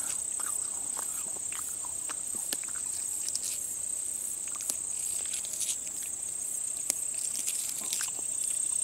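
Steady high-pitched chorus of summer insects, with scattered soft rustles and snaps as a hand brushes through and handles goldenrod and grass stems.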